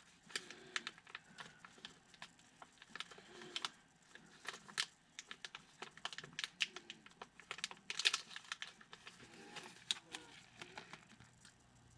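Plastic lure packaging being handled: irregular, faint clicks and crinkles, with a denser cluster about eight seconds in.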